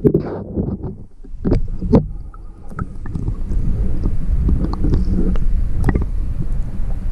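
Stream water rumbling past an underwater GoPro housing, heard as a dense low rumble that grows louder about three seconds in. Several sharp clicks and knocks of stones cut through it, the clearest about one and a half, two and six seconds in.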